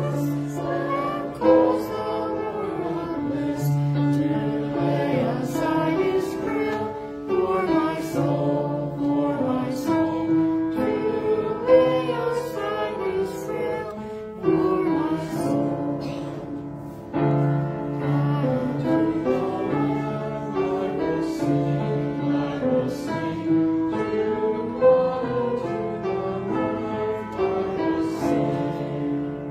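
Congregation singing a hymn with keyboard accompaniment, a steady run of sustained sung notes moving from chord to chord.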